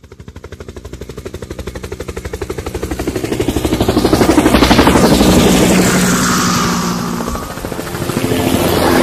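Helicopter rotor with rapid, even blade beating, growing steadily louder to a peak about halfway, easing off, then swelling again near the end.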